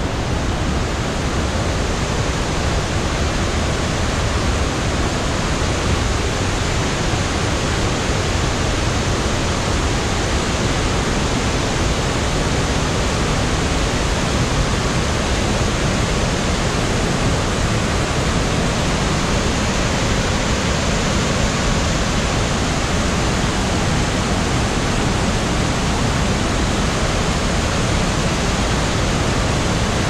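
Mae Klang Waterfall in heavy flow: a loud, steady rush of water pouring over rock ledges.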